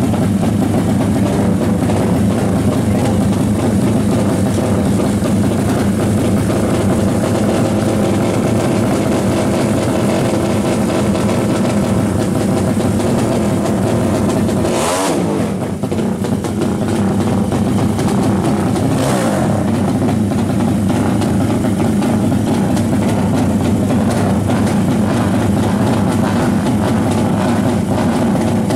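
Drag-racing motorcycle engines running and revving hard, a loud continuous engine sound with a short falling pitch glide about halfway through.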